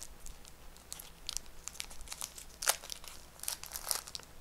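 Foil trading-card booster pack crinkling and cards being handled: scattered short rustles and clicks, with a sharper crackle a little past halfway and a few more near the end.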